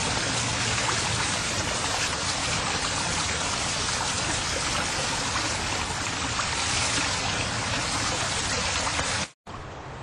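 Steady rush of water flowing along a stone tunnel floor. It cuts off abruptly near the end and gives way to a quieter hiss.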